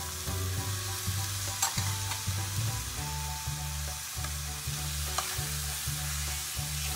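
Chickpeas and onion-tomato masala frying and sizzling in a stainless steel pot while a spatula stirs and scrapes them. A few sharp clicks of the spatula against the pot stand out, about a second and a half in and again about five seconds in.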